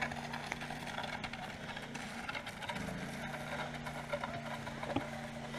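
A steady low mechanical hum, like an engine running, that wavers briefly about halfway through. Under it, faint scraping and small crackles, as of a long branch dragged over a gravel road.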